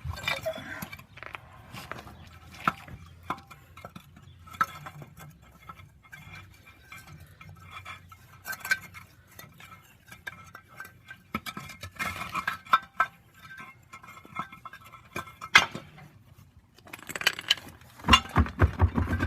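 Scattered metallic clinks and rattles of a spare tire being worked free of a truck's underbody spare-tire hoist cable and hook, with a denser clatter near the end.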